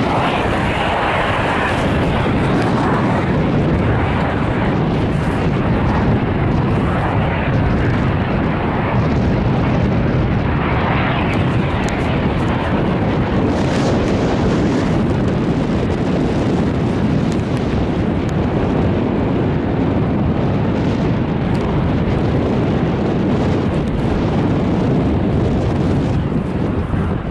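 Steady wind buffeting the camera microphone on a moving chairlift ride, a loud, rushing noise.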